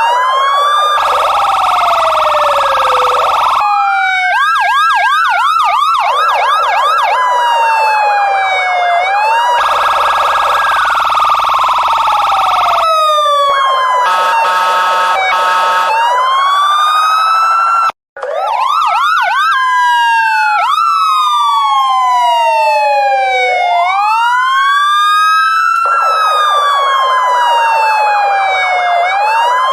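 Police car sirens cycling through their modes: a slow wail sweeping up and down, a fast yelp warbling several times a second, and stretches of a harsh, steady blaring tone. The sound breaks off for a split second about eighteen seconds in, then carries on.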